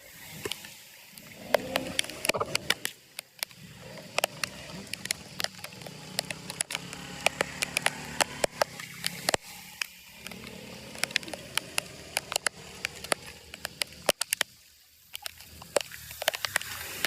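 Flood water sloshing at a clogged drain, with many sharp, irregular clicks and crackles of debris being shifted.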